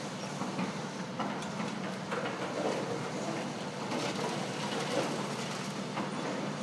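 Excavators' diesel engines running steadily, with a few faint clanks and knocks as the buckets work through rubble.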